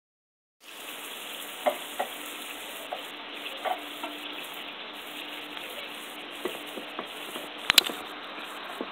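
Yellow snapper pieces frying in hot coconut oil: a steady sizzle that begins about half a second in, with scattered sharp pops and the loudest pops near the end.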